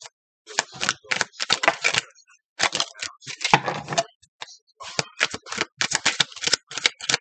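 A deck of tarot cards being shuffled by hand: runs of crisp clicking, crackling card noise in quick clusters, broken by short pauses.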